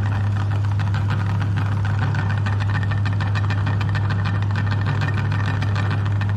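Electric meat grinder running steadily: a strong, even low motor hum with a fast, continuous rattle over it.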